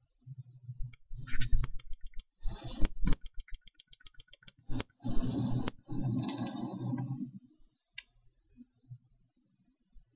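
Computer mouse clicking, with two quick runs of about ten ticks a second, and a couple of longer stretches of duller noise between the clicks.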